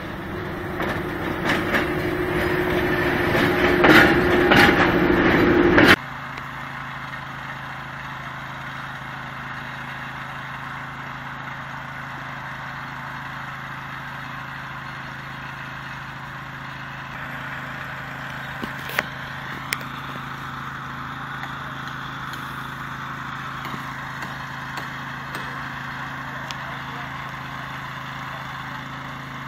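A diesel shunting locomotive running toward the listener, its engine growing steadily louder for about six seconds before the sound ends abruptly. Then the steady running of a small engine on a track machine for screwing rails to the sleepers, with a few sharp clicks.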